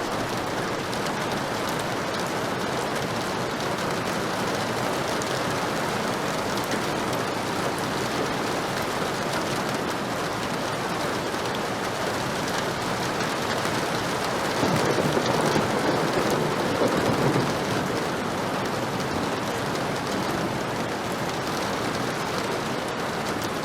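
Heavy rain falling steadily. About fifteen seconds in, a low rumble of thunder swells for a few seconds over the rain.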